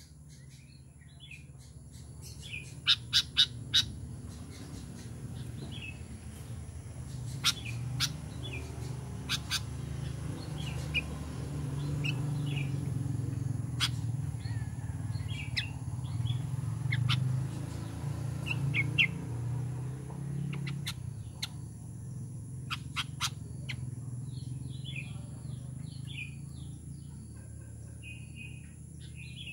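Sooty-headed bulbul (kutilang) giving short chirping calls at scattered intervals, mixed with sharp clicks, over a low rumble that swells in the middle.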